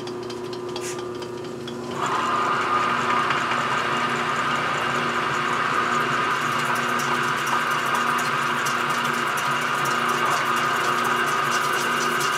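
Atlas horizontal milling machine running with a steady mechanical whine. It gets clearly louder about two seconds in, when a higher whine joins it.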